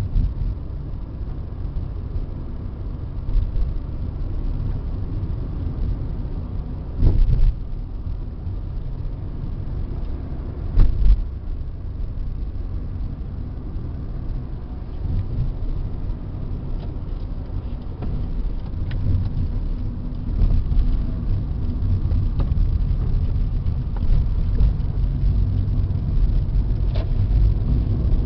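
Car driving slowly, heard from inside the cabin: a steady low engine and tyre rumble, with two brief louder thumps about seven and eleven seconds in, and the rumble growing a little louder in the last third.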